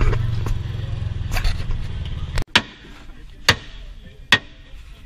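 A side-by-side UTV engine idling with a low rumble, cutting off about two and a half seconds in; then a hammer strikes metal on the UTV's front suspension A-arm, about once a second, three or four blows.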